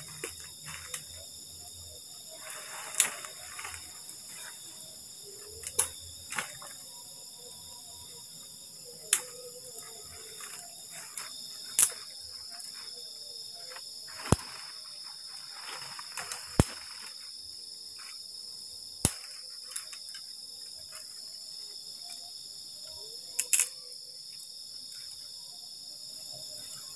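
Dry bamboo sticks and twigs cracking and rustling as they are gathered by hand, with about eight sharp snaps a few seconds apart. Under them is a steady, high insect chorus of crickets.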